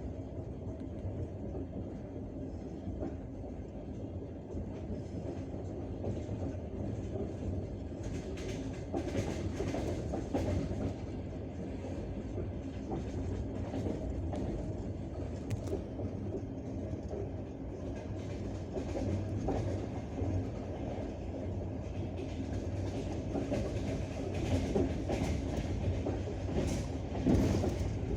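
Passenger train running on the rails: a steady low rumble with the clickety-clack of wheels over rail joints. The clacks grow sharper and more frequent about a third of the way in and again near the end.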